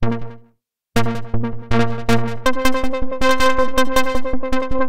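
GForce Axxess software synthesizer, an emulation of the ARP Axxe analogue synth, playing the "Ripple Arp" preset. A single plucked note dies away quickly, then after about a second come four repeated low notes, and from about halfway a faster, higher arpeggiated pattern repeats.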